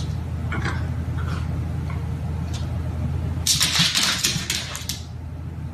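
A Shiba Inu barking in short bursts, with a louder, scratchy flurry about three and a half seconds in as it jumps about. A steady low hum runs underneath.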